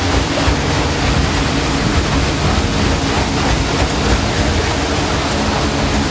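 A boat's red paddlewheel turns and churns the water in a steady, loud rush of splashing, with a steady low hum underneath.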